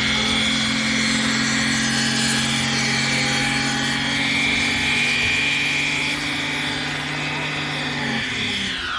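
Car engine held at high revs while the drive wheels spin in a burnout, the tyres squealing; the revs drop away with a falling pitch near the end.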